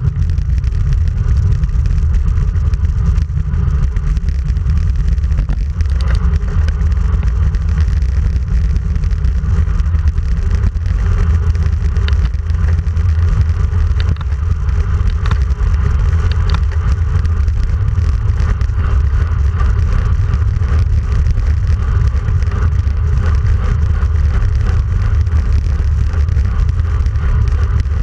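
Steady, loud wind rumble buffeting a handlebar-mounted camera's microphone as a road bike rides along at speed, over a fainter rush of tyres on asphalt.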